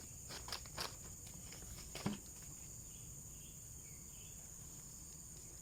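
Steady, high-pitched insect chorus. A few sharp clicks or steps sound in the first two seconds, and faint short chirps come around the middle.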